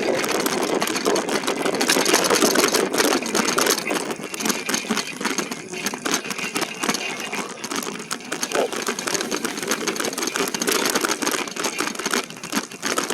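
E-bike riding over rough ground: tyre noise and a busy, uneven rattle from the bike and its loaded basket.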